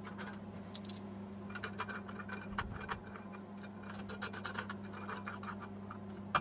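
Steel hex nut being spun by hand down a threaded bar onto washers, giving scattered light metallic ticks and clinks, over a steady low hum.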